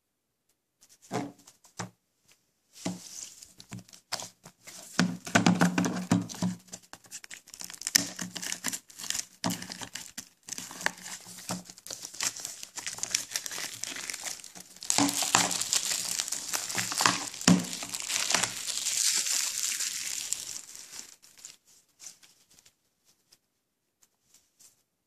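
Plastic shrink-wrap being torn open and peeled off a Blu-ray case, with a long run of crinkling and crackling that grows denser and louder about two-thirds of the way through, then stops.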